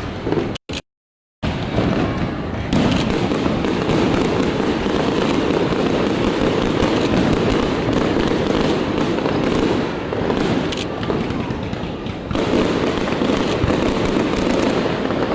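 Aerial fireworks display: a dense, continuous barrage of bangs and crackling. The sound cuts out completely for under a second, about half a second in.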